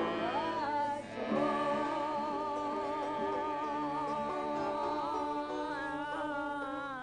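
A group of voices singing in harmony. After a short break about a second in, they hold a long final chord with vibrato.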